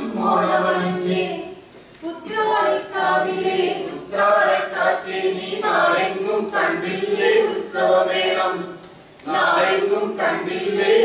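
A group singing an Onam song (Onappattu) together in Malayalam without instruments, led by a woman singing into a microphone. The singing pauses briefly about two seconds in and again near nine seconds.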